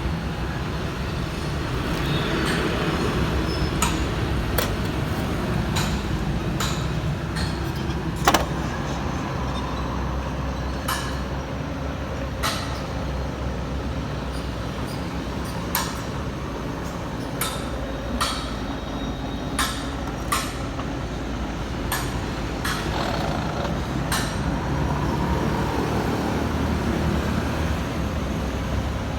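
Okuma radial arm drill running with a steady mechanical hum, with scattered sharp clicks and knocks, the loudest about eight seconds in.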